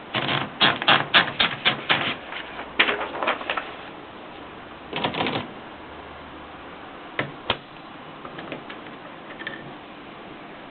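Consul typewriter keys striking in a quick run of sharp clicks over the first few seconds. A short dense burst of clicks follows about five seconds in, then a few scattered single clicks.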